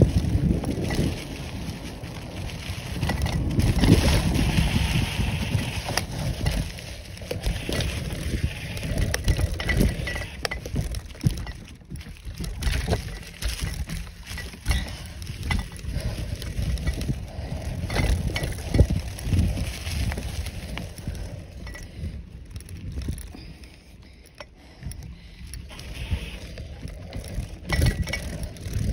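Mountain bike ridden along a dirt trail strewn with dry leaves: knobby tyres rumbling over the ground, with frequent clicks, knocks and rattles from the bike over bumps. The rumble eases for a few seconds about two-thirds of the way through.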